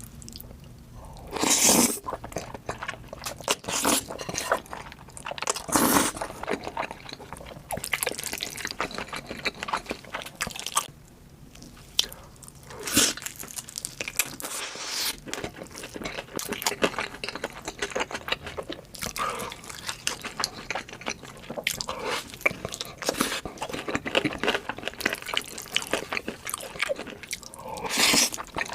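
Close-miked eating: crunchy bites and chewing, with a few louder bites about a second and a half in, around six seconds, around thirteen seconds, and near the end.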